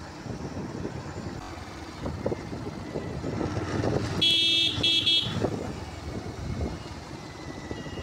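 A vehicle horn honks twice in quick succession about four seconds in, over the continuous engine and road noise of a moving motorcycle.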